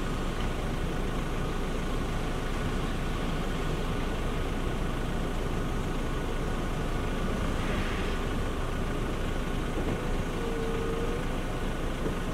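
Diesel engines of a Matador excavator working and Shacman dump trucks running, a steady mechanical rumble.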